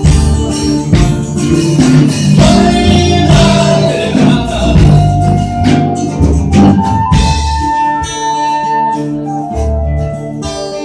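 A live rock band playing an instrumental passage, with drums and guitar. The drums hit hard through the first six seconds, then drop back while sustained guitar notes carry on.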